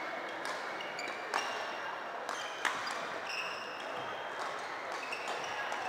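Badminton rackets striking a shuttlecock: two sharp hits about a second and a half apart. Short high squeaks of court shoes on the floor, over a murmur of voices in the hall.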